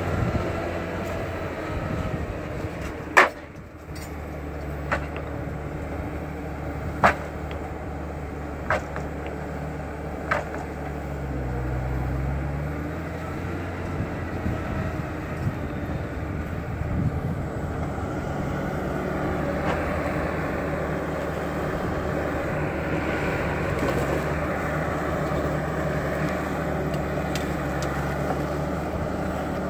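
Timberpro 840B forwarder's diesel engine running steadily, with five sharp knocks in the first ten seconds, the first the loudest. The engine note dips briefly near the middle.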